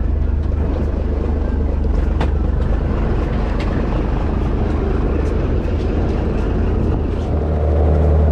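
Fishing boat's inboard engine running with a steady low drone, mixed with the rush of water and air. About seven seconds in it gets louder and more even, as the boat runs at speed throwing a wide wake.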